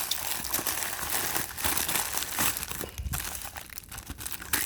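Parcel packaging crinkling and rustling as it is handled and searched through by hand, with a sharper crackle near the end.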